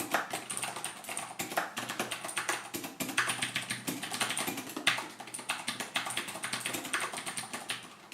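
Vortex Poker 3 mechanical keyboard with clicky Cherry MX Blue switches being typed on steadily: a fast, uneven run of sharp key clicks, several a second, with a few louder strokes.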